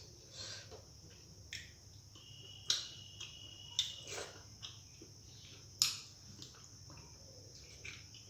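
Eating by mouth: scattered wet smacks and clicks of lips and chewing on rice and curry, the sharpest about a third of the way in and again past the middle.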